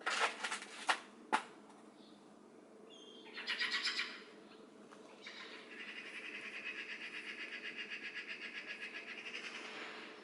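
Bird calls: a few sharp calls at the start, a short rapid rattle a few seconds in, then a long even pulsed trill that stops just before the end.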